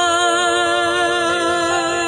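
A woman singing one long held note with a wide, even vibrato over sustained backing music.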